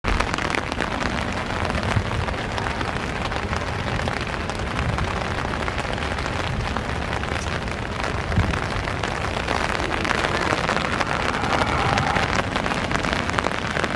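Steady rushing noise of rain and breaking sea surf.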